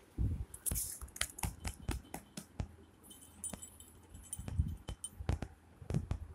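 Small bell on a cat's collar jingling and clicking as the cat is stroked, with a thin ringing held for about two seconds from around three seconds in, and a few soft thumps of handling.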